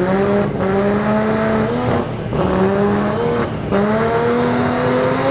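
Race-car engine revved at the drag strip's starting line, its pitch climbing in several stretches, each broken off by a brief cut about every second and a half.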